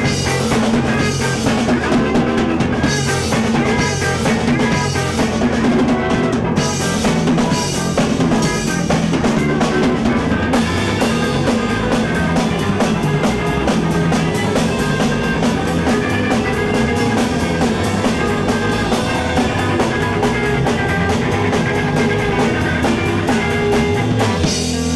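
Rock band playing an instrumental passage, with a drum kit (kick and snare) driving over bass and guitar. About ten seconds in, the drums switch to a fast, even run of hits, and near the end the band stops on a held, ringing chord.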